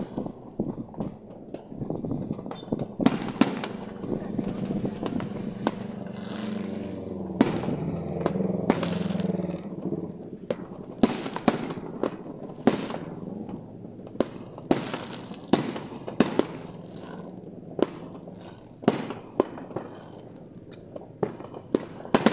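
Aerial fireworks bursting overhead: a run of sharp bangs at irregular spacing, about one a second.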